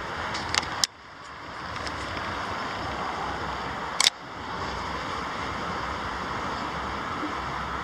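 Steady outdoor rushing noise of wind and distant traffic, broken by sharp camera clicks: two just under a second in and a louder one about four seconds in.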